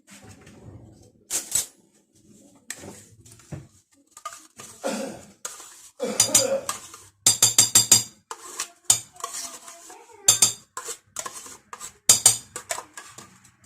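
Spoon or whisk clinking and clattering against a mixing bowl in irregular bursts of quick strikes, as yogurt goes into cake batter.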